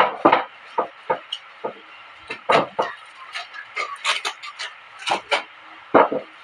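Cardboard box and packing being handled and pulled open: a string of irregular scrapes, rustles and knocks.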